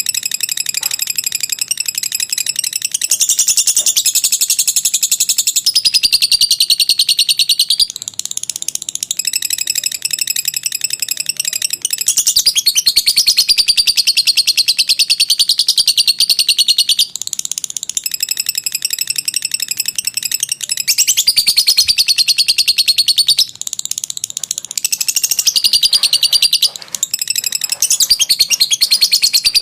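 Lovebird chattering in a long, unbroken high-pitched trill (the 'ngekek panjang' song), pausing only briefly every few seconds.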